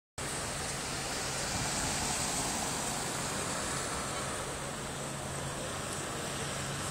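Steady street traffic noise with a car engine running at low speed and no revving.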